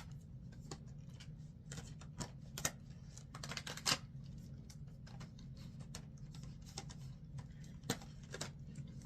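Irregular light clicks and taps of small cardboard and plastic packaging being handled as an advent calendar compartment is opened and a mini makeup product is taken out.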